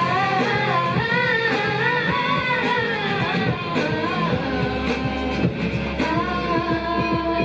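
Upbeat idol-pop rock song performed live, with voices singing the melody over rock instrumentation and a steady beat.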